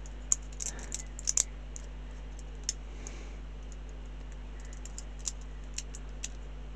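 Small plastic model-kit parts clicking and tapping together as they are handled and test-fitted. The light clicks are scattered: a cluster in the first second and a half, then a few more further on. A steady low electrical hum runs underneath.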